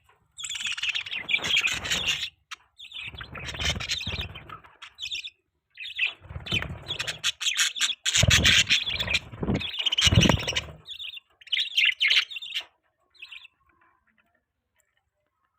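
Budgerigars chirping and chattering in a run of quick warbling bouts with short pauses between them, stopping about 13 seconds in.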